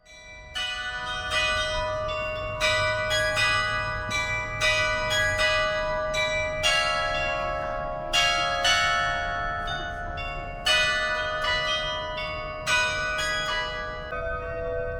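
Change ringing on a large ring of tower bells, the Swan Bells: bells struck one after another in quick succession, several a second, each ringing on under the next.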